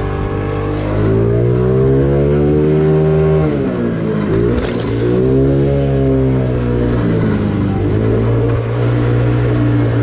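Stock 50cc GY6 four-stroke single-cylinder scooter engine under throttle while riding: it revs up, eases off about four seconds in, then pulls up again, with another dip near the end.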